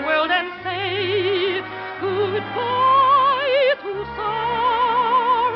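A soprano singing a slow melody in operatic style, holding long notes with a wide vibrato, over an orchestra, in the narrow, muffled sound of an early-1950s radio transcription.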